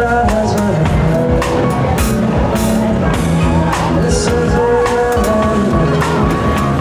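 Live band playing amplified music: drum kit with cymbals, electric bass and guitar.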